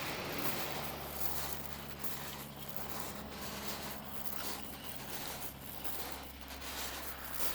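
Ocean surf washing on a shore: a steady hiss of water that swells and eases slightly, with a low steady rumble underneath.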